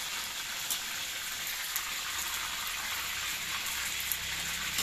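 Flour-coated pieces frying in hot oil in a steel wok: a steady sizzling hiss with a few sharp pops.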